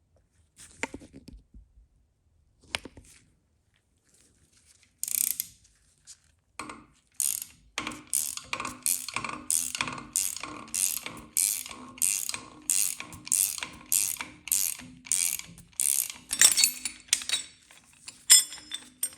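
Ratchet wrench clicking in regular strokes, about two a second, turning the puller's screw to draw the LT1 engine's water pump drive gear assembly out of the block. A few scattered clicks come first, and a short metallic clatter comes near the end.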